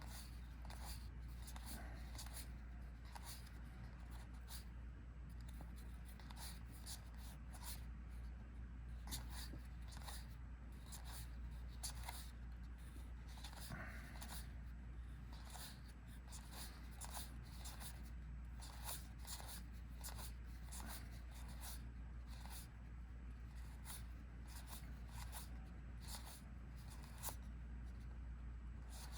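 Trading cards being handled and slid off a deck one after another, giving soft repeated swishes and light clicks, over a steady low hum.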